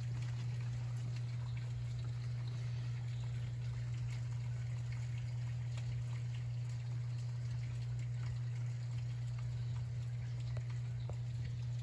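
Heavy rain pouring down, with many scattered drips and splashes, over a steady low rumble.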